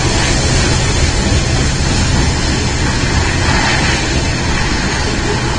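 Freight train passing close by: BNSF locomotives go past, then covered hopper cars roll by, giving a steady rolling rumble of wheels on rails.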